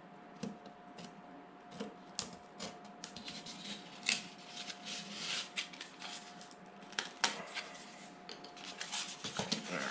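Hobby knife blade cutting through thin food-packaging cardboard on a hard board: irregular scratchy strokes and small sharp clicks. A faint steady hum runs underneath until near the end.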